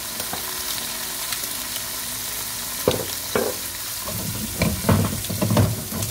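Halved cherry tomatoes and garlic in white wine sizzling in a nonstick frying pan on a gas hob. A few sharp clicks come about halfway through, then a run of louder knocks and scrapes from the pan or a utensil near the end.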